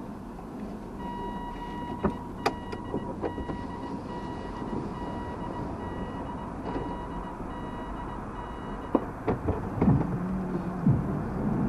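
A car's electronic warning tone beeps steadily while the car reverses out of a parking space, as a reversing or parking-sensor alert does. It starts about a second in and cuts off about nine seconds in, with a few sharp clicks over it and low cabin noise beneath.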